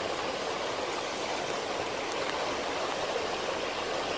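Swollen river in flood: fast, turbulent floodwater rushing steadily past, a high water level with white standing waves.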